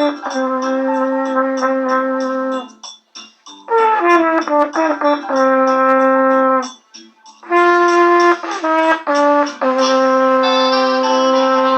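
Trumpet played by a beginner: a slow melody in three phrases of quick notes, each phrase ending on a long held note, with short breaths between phrases. The last long note wavers slightly.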